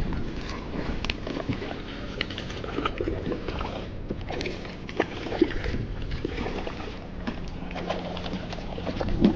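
Scattered light knocks and clicks with water sloshing, from a small fishing boat while a hooked fish is being brought in.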